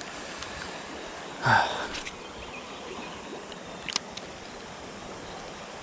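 Steady outdoor hiss by the river, with a short breathy sniff-like sound about a second and a half in and a single sharp click near four seconds.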